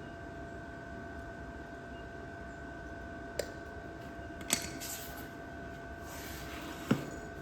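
A steady background hum with two faint steady tones, broken by three short, sharp knocks, the first about three and a half seconds in and the last near the end.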